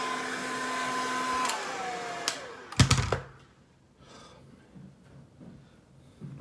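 Handheld hair dryer blowing with a steady whine, then switched off about a second and a half in, its whine falling as the fan winds down. A few loud sharp knocks follow about three seconds in.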